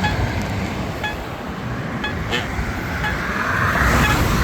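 Road traffic going by, with a vehicle passing louder near the end. Over it, the Campbell Guardian pedestrian push button's locator tone ticks about once a second.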